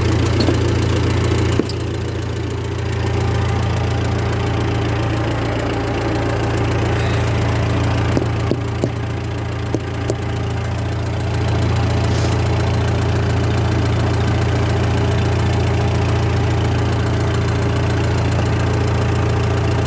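Massey Ferguson 30 backhoe loader's Perkins diesel engine idling steadily while it warms up after a cold start, with a few light clicks in the first half. It grows somewhat louder about halfway through.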